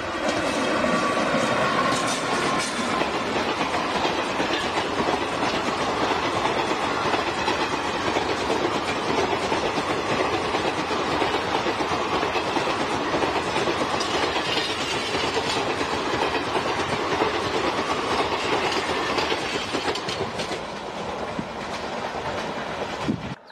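WAP-4 electric locomotive and its rake of passenger coaches passing at speed, the wheels running loud and steady over the rails. It cuts off suddenly near the end.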